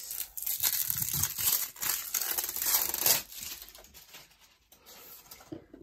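Plastic wrapping and tape on a rolled-up canvas crinkling and crackling as it is handled and pulled at to open it, dense for about three seconds, then softer rustling.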